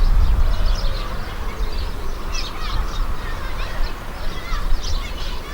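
Wind buffeting the microphone in a low, uneven rumble, with many short high chirps of birds calling through it.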